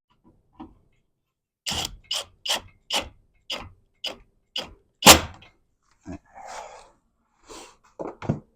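A run of sharp knocks, about two a second, ending in one louder knock, then a short rustle and two more knocks near the end: hard parts and hand tools knocking as a car window motor is refitted to its regulator.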